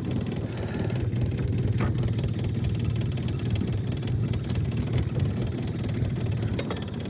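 Mercury outboard motor idling steadily, a low even hum.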